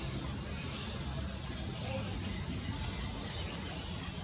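Steady outdoor background noise: a low rumble under an even hiss, with a few faint, short high chirps.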